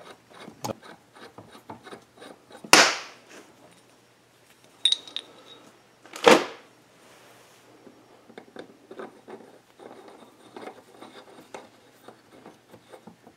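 Metal hand tools handled and set down on a metal workbench. There are two loud metallic clanks, about 3 and 6 seconds in, and a short metallic ring near 5 seconds. Light clicks and rattles follow as a threaded rod and nut are fitted to a chainsaw crankshaft end.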